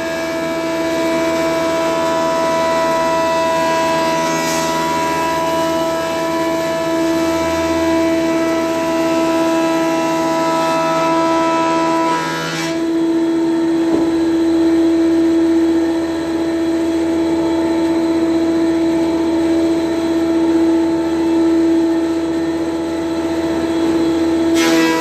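Colombo 500 mm thickness planer running, a steady mechanical hum with several held tones. About halfway through the tones shift abruptly in pitch, with a short click at the change.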